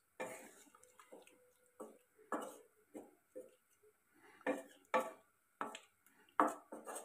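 Wooden spatula stirring chunks of vegetables in milk in a nonstick kadai: a run of irregular scraping and knocking strokes, more frequent and louder in the second half.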